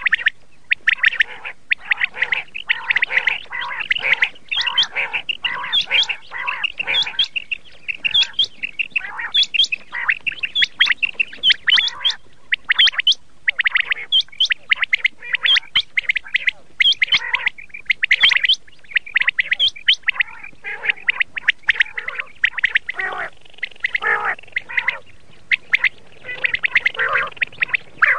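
Common quail calling: rapid runs of short, sharp calls, repeated with brief pauses.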